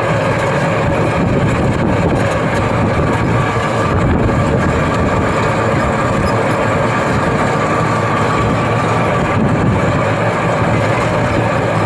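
A vehicle engine running steadily: a constant rumble with an even, unchanging hum.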